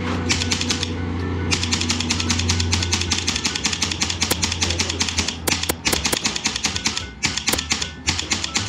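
Polarstar Kythera HPA airsoft rifle firing on full-auto: long fast strings of shots, then shorter bursts and single shots in the second half. A steady low hum runs underneath.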